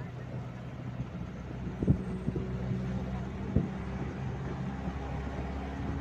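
Engine of the camera's vehicle running at a steady speed along the road, with two sharp knocks, about two and three and a half seconds in.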